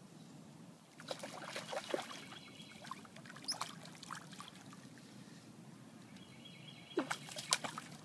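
A small hooked gar splashing at the water's surface as it is reeled toward the bank, in bursts about a second in, briefly in the middle, and again near the end.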